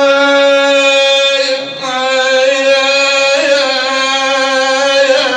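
A man's voice chanting a Husseini mourning lament: two long drawn-out notes held on one pitch, with a short break about a second and a half in.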